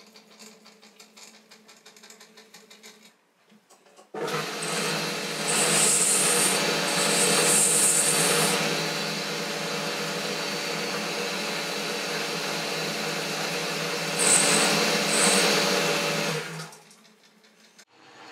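Boxford metal lathe starting up about four seconds in and running with a steady whine of gears and belt, while the turning tool cuts the spinning shaft, a hiss that grows brighter in short patches as the cut bites. It winds down near the end.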